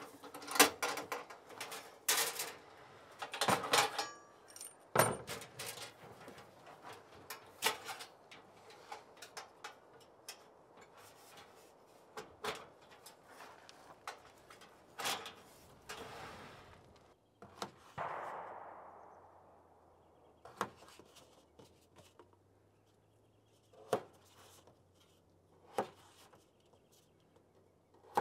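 A portable two-burner camp stove being handled and opened on a folding table: its case, lid and metal windscreen panels clack, knock and rattle. The clatter is densest in the first few seconds and thins to a few isolated knocks near the end.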